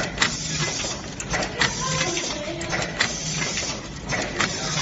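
Automatic pregnancy test kit packing machine running: a steady mechanical hum with a short clatter of metal parts repeating about every second and a half as the conveyor indexes the test cassettes along.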